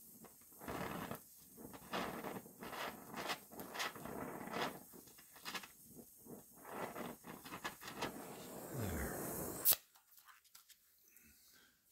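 Gas welding torch flame hissing and crackling with many sharp pops as it fuses a seam in a steel car body panel. Near the end a single sharp pop and the sound cuts off suddenly as the torch is shut off.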